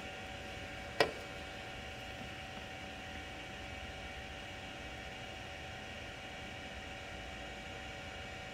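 Sovol SV02 3D printer's cooling fans running steadily with a faint two-note whine while the printer heats its bed. A single sharp click about a second in.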